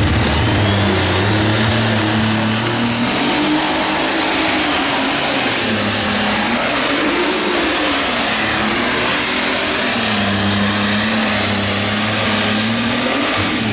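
Super stock pulling tractor's turbocharged diesel engine at full power hauling the weight-transfer sled, with a high turbo whine that climbs over the first three or four seconds and then holds. The engine note wavers up and down as the tractor goes down the track.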